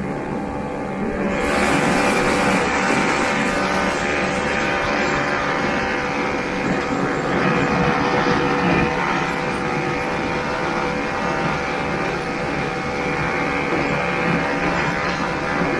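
1969 Ski-Doo Olympique's 320cc single-cylinder two-stroke engine running steadily as the snowmobile travels, getting louder about a second and a half in.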